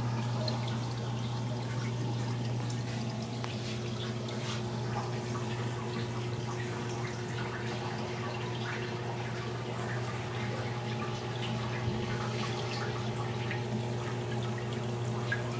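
Reef aquarium equipment running: a steady low pump hum with water trickling and dripping, and small scattered ticks.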